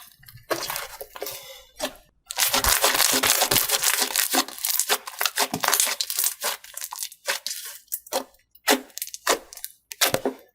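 Slime being worked by hand, crackling and tearing in a dense stretch, then giving a run of separate sharp pops about every half second.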